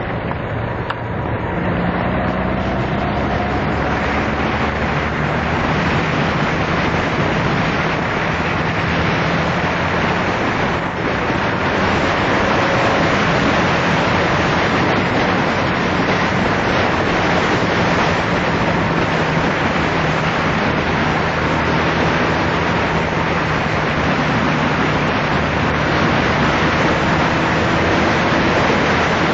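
Wind and road noise rushing over the microphone of a Honda Magna motorcycle at speed, with the engine's steady hum faintly beneath; the engine's pitch rises briefly a second or two in.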